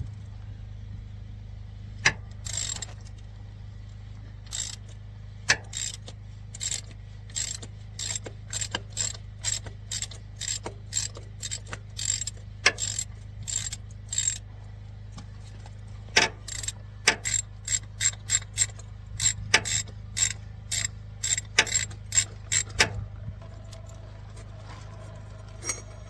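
A hand ratchet clicking in repeated short strokes, about one or two a second with brief pauses, as a fluted cap wrench on the ratchet unscrews the cartridge oil filter housing of a 2010 Toyota Prius.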